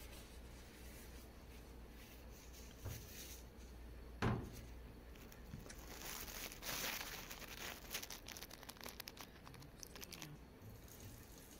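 Faint rustling and crinkling of a tissue wiping the plastic casing of an instant electric water heater, with scattered small clicks and a single short knock about four seconds in.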